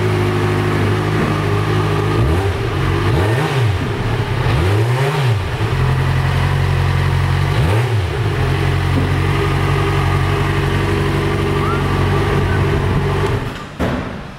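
2009 Yamaha FZ6R's 600 cc inline-four engine idling steadily, revved briefly a few times with quick throttle blips in the first half. The engine is then switched off near the end.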